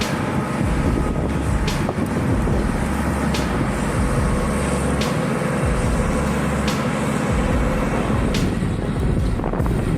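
Komatsu D155 crawler bulldozer's diesel engine running under load while it climbs, a steady low rumble with a sharp tick about every second and a half.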